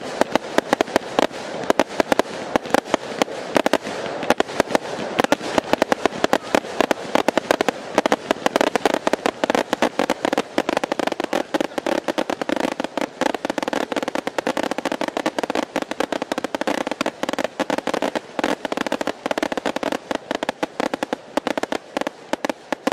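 Fireworks batteries (cakes) firing in a dense barrage: a rapid, near-continuous run of bangs and crackle from many aerial bursts, several reports a second.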